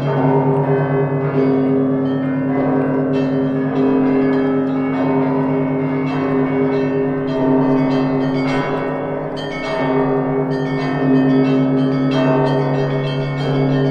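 Russian Orthodox festal bell ringing (zvon) on the Danilov Monastery bells: a deep bell hum sustains underneath while several smaller bells are struck in a busy pattern over it, with a heavier stroke a little more than once a second.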